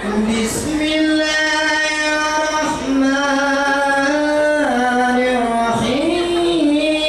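A man chanting a solo Quranic recitation (qiroah) into a microphone, in long held notes that slide slowly between pitches.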